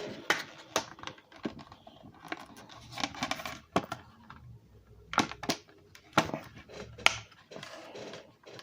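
Trading cards and their plastic packaging being handled: scattered sharp clicks and taps with short stretches of rustling, the loudest click about seven seconds in.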